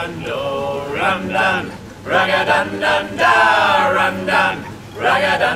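A small mixed group of men's and women's voices singing a song together in harmony, with long held notes in the middle.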